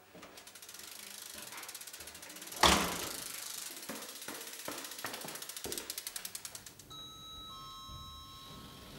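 BMX bike's freewheel hub clicking rapidly as the bike is wheeled along, with one loud thud about a third of the way in. Near the end a lift chime rings a two-note ding.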